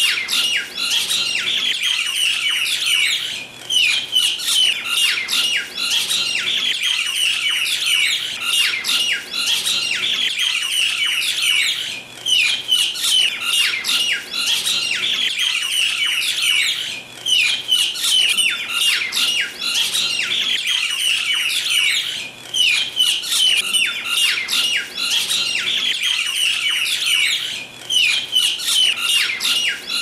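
A flock of mynas squawking continuously in dense, overlapping harsh calls, the scolding chatter of birds fighting over food.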